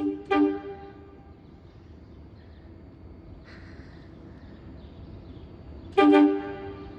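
MBTA Orange Line subway train horn giving short toots, two notes sounding together. There are two quick blasts at the start and one more about six seconds in. A low steady rumble lies between them, with a brief hiss about halfway through.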